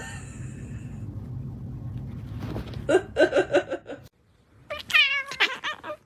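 A cat calling: a quick run of about five short calls, then a single long wavering meow.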